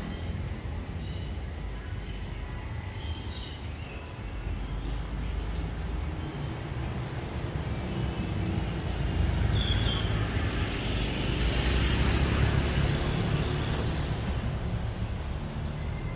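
Outdoor street traffic rumbling steadily, with a vehicle passing that swells the noise for a few seconds from about nine seconds in. A steady high-pitched pulsing tone runs under it.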